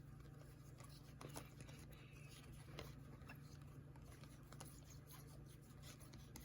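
Near silence over a steady low hum, with faint scattered clicks and scratches: trading cards being handled.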